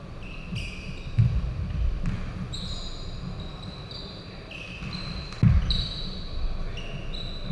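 Basketball game on a hardwood court in a large gym: sneakers squeaking on the floor again and again, and the ball thumping. The loudest thumps come about a second in and at about five and a half seconds.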